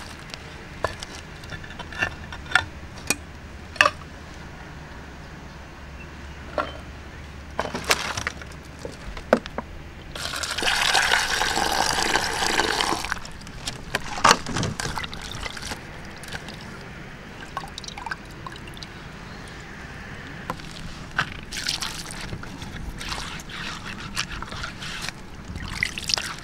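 Water being poured and splashing for about three seconds starting ten seconds in, amid scattered clicks and knocks of things being handled. Near the end a thin stream of water trickles onto a stone slab as it is scrubbed by hand.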